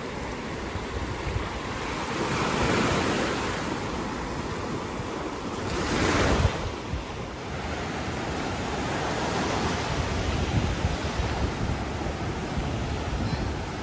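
Small Gulf of Mexico surf breaking and washing over the sand, in a steady wash that swells and falls with each wave. The loudest moment is a wave breaking right at the water's edge about six seconds in.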